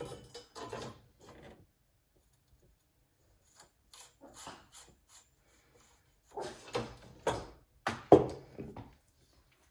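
Scattered clicks and knocks of a cast-on comb and weights being hung from the knitting on a knitting machine, with a cluster of louder knocks about six to eight seconds in, the loudest just after eight seconds.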